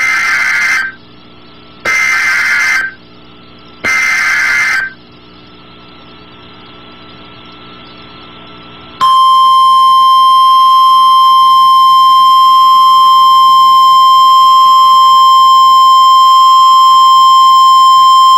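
NOAA Weather Radio emergency alert signal: three short, loud bursts of screechy digital SAME header data, about two seconds apart, then a few seconds of faint radio hiss. About nine seconds in, the single steady 1050 Hz warning alarm tone sounds loudly. Together they mark the start of a new warning broadcast.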